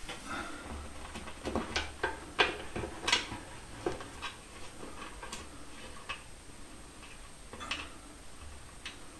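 Scattered light metal clicks and taps of a nut being worked by hand onto a hinge bolt, with a run of sharper clicks about two to four seconds in. The hinge is slightly bent, so the nut will not start easily.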